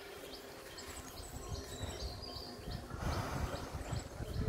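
Small birds chirping repeatedly, short high notes over low rumbling, with a brief rustle about three seconds in.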